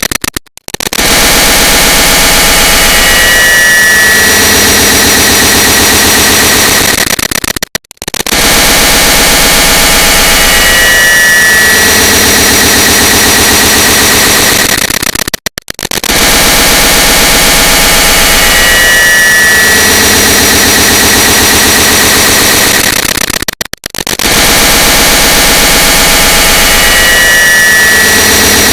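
A click sound stacked and multiplied many times over into a very loud, distorted wall of harsh noise. It loops about every 8 seconds, each time cut by a brief near-silent gap.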